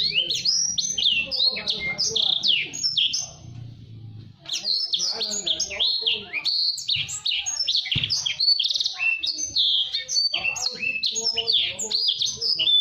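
Blacksang (black-throated canary × sanger hybrid) singing a fast, tightly packed song of quick chirps and sweeping notes, broken by a short pause about three seconds in.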